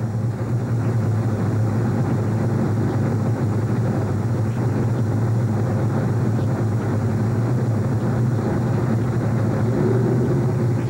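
Race truck engine idling steadily, heard from inside the cab, a continuous low drone. A second, higher engine note joins near the end.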